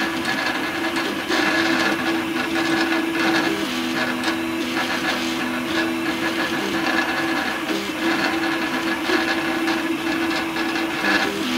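Home-built 3D printer running a print: its stepper motors hum in steady tones that jump to a new pitch every second or two as the print head changes speed and direction, over a steady hiss.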